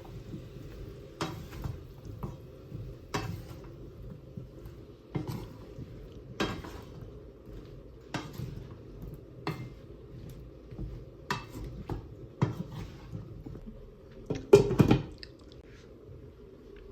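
Dishes and utensils clinking and knocking in a kitchen: about a dozen separate clatters a second or so apart, with the loudest cluster near the end, over a steady low hum.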